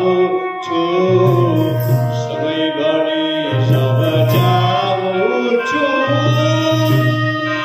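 A song sung live into a microphone through a PA, accompanied by an electronic keyboard holding sustained chords and a dholak.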